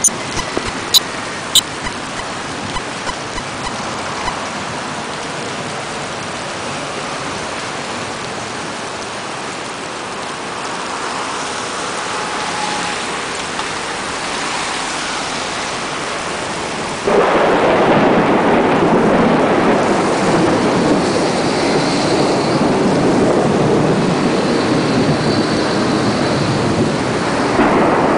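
Thunderstorm rain: a steady hiss, with a few sharp clicks at the start, that suddenly becomes louder and denser about 17 seconds in.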